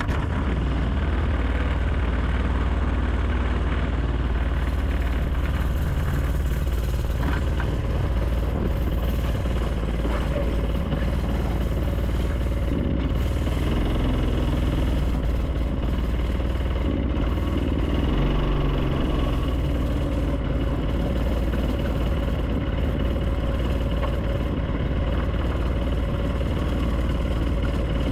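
Go-kart's small engine running steadily during a ride, heard through a GoPro's microphone.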